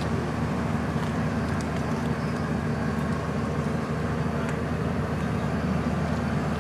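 Steady low mechanical hum with a faint hiss over it, the sound of car wash machinery running, with a few faint clicks.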